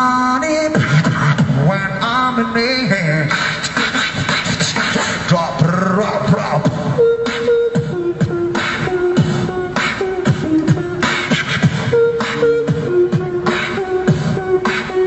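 Beatboxing into a handheld microphone through a small street amplifier: a fast, dense run of mouth-made kicks, snares and clicks. About halfway through, a held steady tone joins the beat and changes pitch every second or so.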